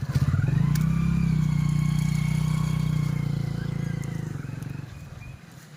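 A small motor vehicle engine running steadily with a high whine above it, dying away about four and a half seconds in.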